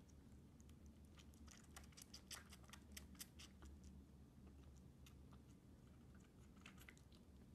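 Faint, quick clicking and smacking of a baby bobcat suckling on a small nursing bottle's nipple, thickest from about one to three and a half seconds in and again briefly near the end, over a low steady hum.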